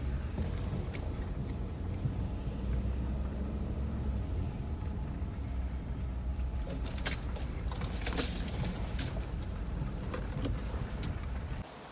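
Red Ford pickup truck heard from inside the cab, creeping along a dirt and gravel driveway: a steady low engine and road rumble, with scattered sharp clicks and crackles in the second half. The sound drops off suddenly near the end.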